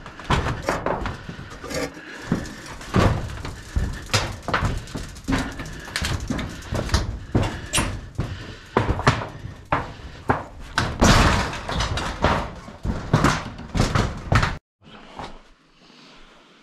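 Footsteps on loose corrugated galvanized steel roofing sheets: a string of bangs and clatters from the thin metal under each step, one or two a second. They cut off abruptly a couple of seconds before the end, leaving faint room sound.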